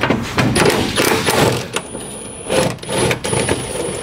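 Cordless Milwaukee power tool running in several short bursts, spinning off the bolts of an exhaust's rear mount.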